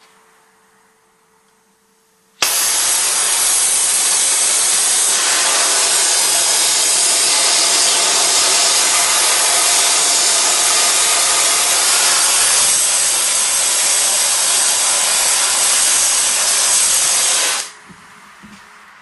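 Gas torch running with a loud, steady hiss, reheating the bent vise leg to straighten it. It starts abruptly about two seconds in and cuts off abruptly near the end.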